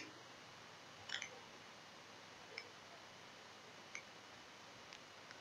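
Fish deep frying quietly in a karahi: a faint steady hiss with five short sharp clicks at irregular gaps, the loudest at the very start.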